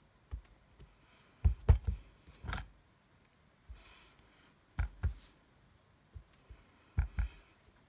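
Clear acrylic stamp block with a wood-grain rubber stamp knocking down onto cardstock and an ink pad on a desk: a series of short knocks, several in quick pairs.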